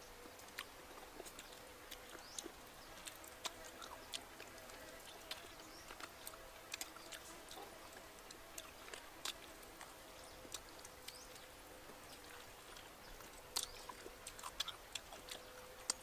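Eating sounds: irregular sharp smacks and clicks of lips and teeth as cooked chicken feet are sucked and chewed, over a faint steady hum.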